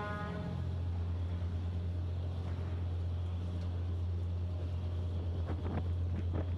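Tour boat's engine running with a steady low drone as the boat moves off from the dock. Wind buffets the microphone a few times near the end.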